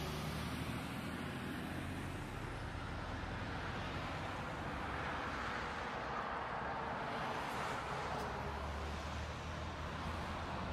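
Steady engine hum and road noise of slow city traffic, recorded by a dashcam inside a car.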